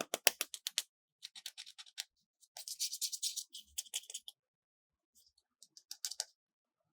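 Handling of toys: a quick run of sharp clicks, then scratching and rubbing, then a few scattered clicks near the end.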